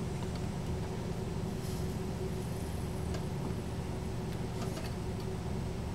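A steady low hum of background noise with a faint constant tone and no distinct events.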